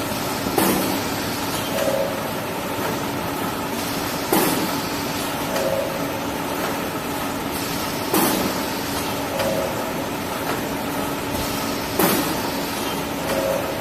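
Automatic tissue paper log band saw cutting machine running steadily, with a sharp burst about every four seconds, four times, as it works through its cutting cycle. A brief higher tone comes midway between the bursts.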